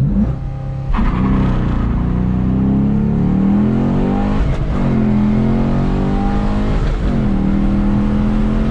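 2017 Chevy SS's 6.2-litre LS3 V8 held at revs on launch control, then launching hard about a second in and accelerating through the gears. The engine note climbs and drops back at upshifts about 4.5 and 7 seconds in, then holds steady.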